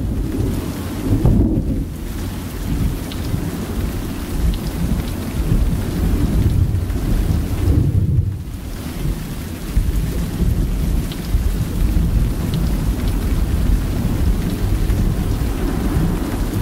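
Recorded thunderstorm sound effect: continuous rain with low rolling thunder under it. The thunder swells about a second in and again around the middle.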